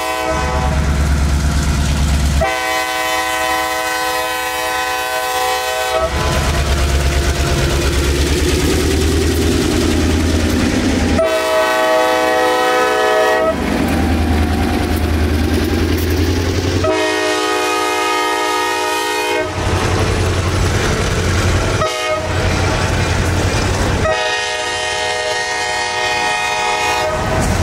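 U.S. Sugar diesel locomotive No. 11 sounding its horn five times. The last four blasts fall into the long-long-short-long grade-crossing pattern. Between blasts the diesel engine runs loud and low as the train throttles back up after a speed restriction.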